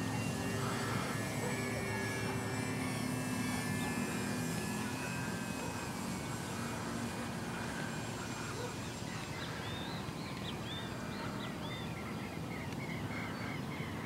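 Electric RC model airplane flying overhead: its NTM Propdrive 50/50 570KV brushless motor and APC 11x5.5 propeller drone steadily, slowly getting fainter.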